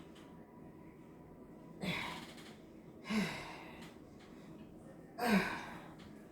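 A woman's three hard, breathy exhalations, each with a short grunt that falls in pitch, at about two, three and five seconds: breathing out with the effort of exercise.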